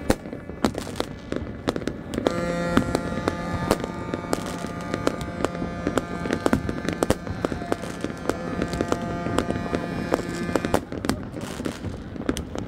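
New Year fireworks going off in great numbers: a dense run of bangs and crackling from many shells and firecrackers. A steady droning tone with many overtones sounds over them from about two seconds in until near the end.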